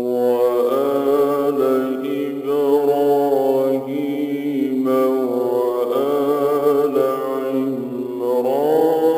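A solo male reciter chanting the Quran in a slow, melodic style, drawing out long ornamented notes with a wavering pitch. There are brief breaks about four and eight seconds in, and a rising note near the end.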